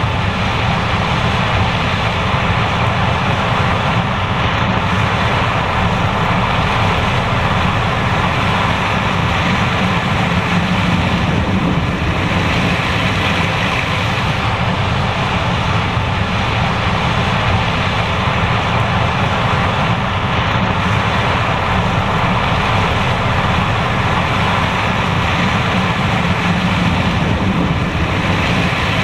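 John Deere S780 combine harvester running steadily at a constant, loud level while harvesting corn.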